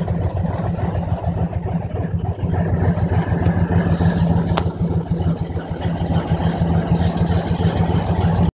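Diesel locomotive engine idling with a steady low hum that grows louder about two and a half seconds in. It cuts off abruptly near the end.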